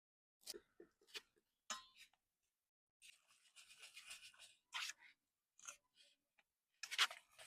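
Intermittent short scratching and crunching noises with silent gaps between them, a longer scratchy stretch about three seconds in, and the loudest cluster near the end.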